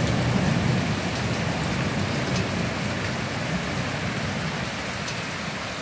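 Torrential rain coming down in sheets onto the street and hard surfaces: a dense, steady hiss with a few faint drop ticks, easing slightly toward the end.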